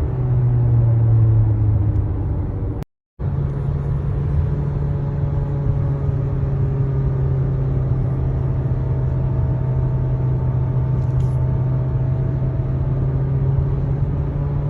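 Car running with a steady low drone and several fainter whining tones that slowly drift in pitch: the strange noise the owner is trying to capture. The sound cuts out completely for a moment about three seconds in.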